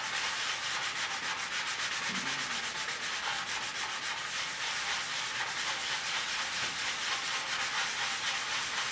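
Fine foam sanding block rubbing over cured body filler (Bondo) on a motorcycle gas tank: steady scratchy hand sanding in quick, repeated strokes to feather the filler smooth.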